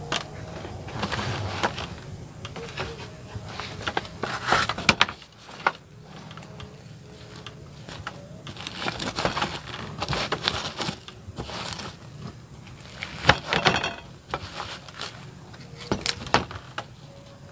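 Charred, dry outer bracts of a roasted banana heart being peeled off by hand: irregular crackling and rustling, with a few sharper cracks.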